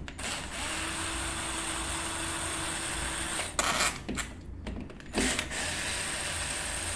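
Electric screwdriver whirring as it backs out the screws of a smart door lock's battery cover. It runs steadily for about three and a half seconds, stops with a couple of knocks, then runs again from about halfway through.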